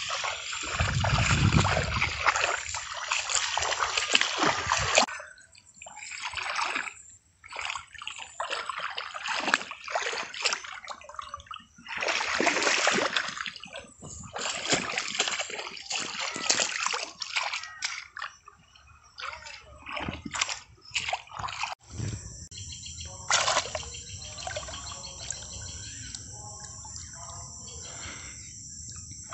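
Hands splashing and sloshing through shallow muddy water in irregular bursts, groping for fish. About 22 seconds in it changes abruptly to a steadier, quieter background with one brief splash.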